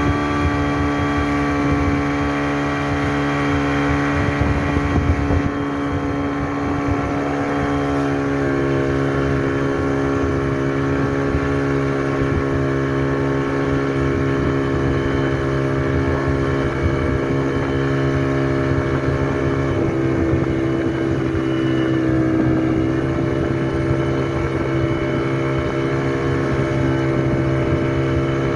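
Engine of a speedboat towing a banana boat, running steadily at speed, its pitch shifting slightly a couple of times.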